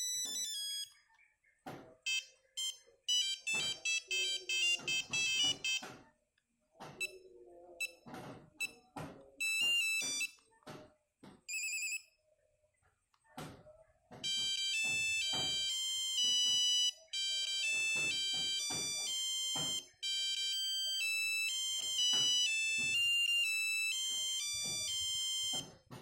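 Nokia 5110 monophonic ringtones played through the phone's buzzer: a few short snippets of beeping, one-note-at-a-time melodies, then a longer tune from about halfway through. Short clicks sound between the snippets.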